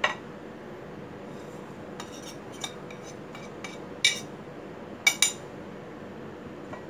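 Dishes clinking as small plates of spices are picked up, tipped over a steel bowl of chicken and set down: a sharp clink at the start, a few light ticks, a loud clink about four seconds in and two quick ones about a second later. A steady low hum runs underneath.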